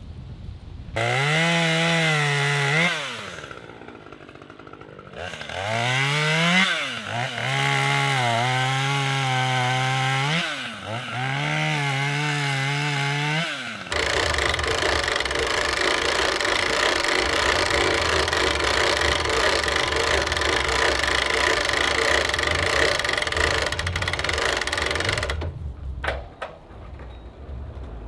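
An engine revved up sharply and held at high speed three times, dropping back in between. About fourteen seconds in it gives way to a loud, steady machine noise that cuts off suddenly near the end.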